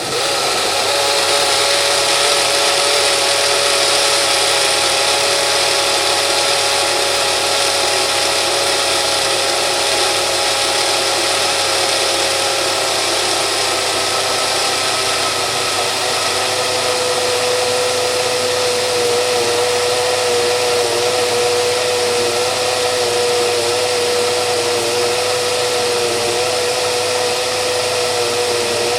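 Electric kitchen blender's motor running continuously with a steady whine over a whirring hiss. The whine drops very slightly in pitch and grows stronger about halfway through.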